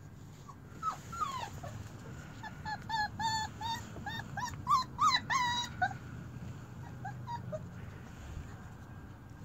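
Four-week-old German shepherd puppies whimpering: a run of short, high-pitched whines and squeaks, loudest about five seconds in, then a few fainter ones before they die away.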